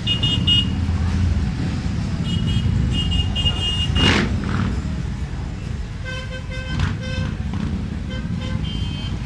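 A convoy of motorcycles and scooters riding past at low speed, their engines a steady low rumble. Horns toot in clusters of short beeps throughout, and one loud rush of engine noise comes about four seconds in.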